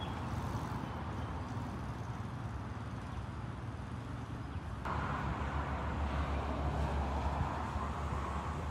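Steady outdoor background noise, a low rumble with a hiss over it, stepping up abruptly and getting louder about five seconds in.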